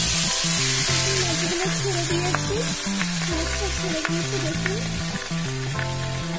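Pieces of bata fish sizzling as they fry in a kadai of very hot oil. The hiss is loud at first and eases a little.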